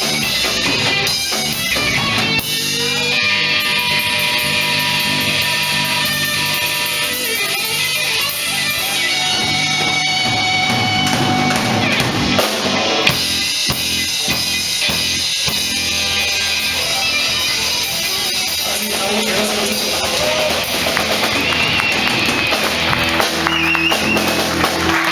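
Live rock band playing an instrumental passage: guitars over a drum kit, with long held guitar notes.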